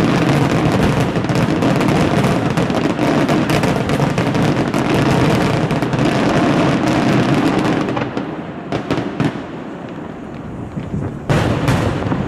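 Aerial firework shells bursting in a dense, rapid barrage of bangs and crackle for about eight seconds. The barrage then thins to a few separate bangs, and a fresh pair of loud bursts comes near the end.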